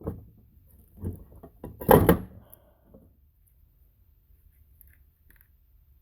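A few knocks and clunks of transfer case parts being handled during disassembly, the loudest about two seconds in.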